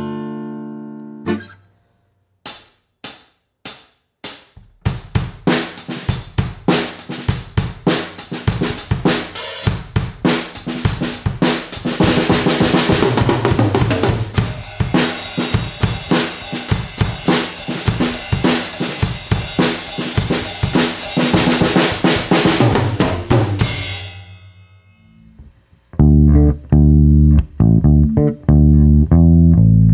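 A drum kit played through a Blue Bluebird condenser microphone. Four sharp clicks count it in, then bass drum, snare and cymbals play for about twenty seconds and ring out. It opens with the last acoustic guitar chord dying away, and near the end loud bass guitar notes come in from a bass amplifier cabinet.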